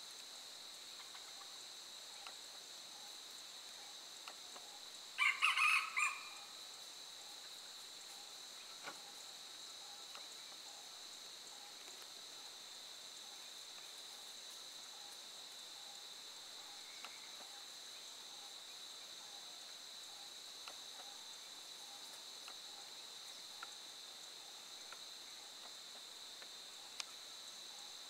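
A red junglefowl cock crows once, a short broken crow about five seconds in lasting about a second. A steady high-pitched insect hum runs underneath.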